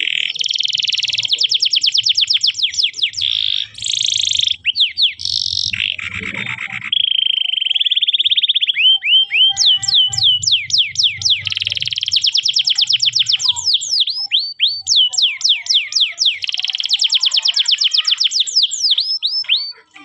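Canary singing one long continuous song of fast trills and quick downward-sweeping notes, with a steady held whistle about a third of the way in. It breaks off at the very end.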